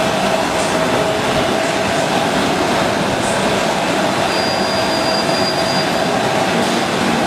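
Commercial popcorn machine running: a steady, even mechanical rushing noise with a constant hum, and a faint high whine for about a second and a half near the middle.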